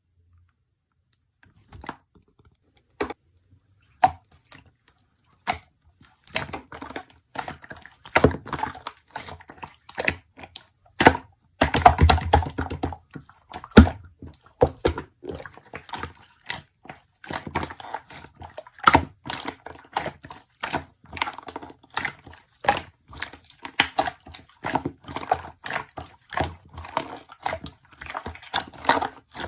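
Dense, irregular clicking and crackling, starting sparse and becoming near-continuous a few seconds in.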